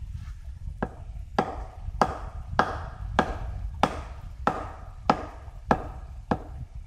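Steady chopping on wood: about ten sharp blows, roughly one every 0.6 seconds, over a low rumble.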